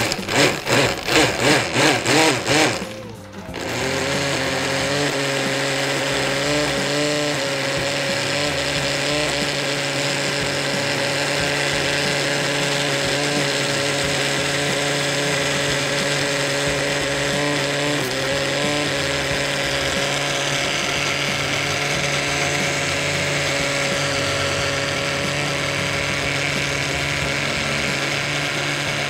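Countertop blender pulsed on and off a few times, then running steadily as it churns a thick sauce of roasted eggplant, peanuts, parsley and oil.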